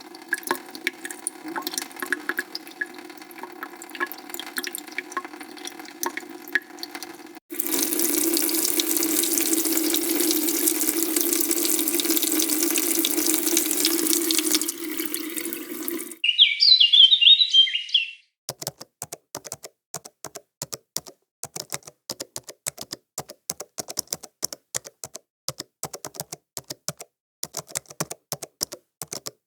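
A string of separate sounds. First scattered small drips and clicks, then water running steadily from a tap into a sink for about eight seconds. After that comes a brief high warbling sound, then many quick sharp clicks, like typing.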